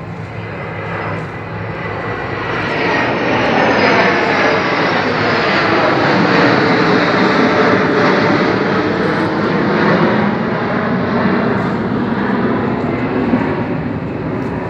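A formation of military jets passing overhead: loud jet engine roar that builds over the first few seconds, holds through the middle with a slowly falling pitch as the jets pass, and eases slightly near the end.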